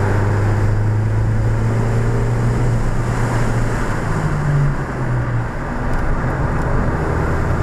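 Ford Fiesta ST's 1.6-litre turbocharged four-cylinder running hard under way on track, heard from inside the cabin with tyre and wind noise. Its note shifts around four to five seconds in, with a brief dip in level.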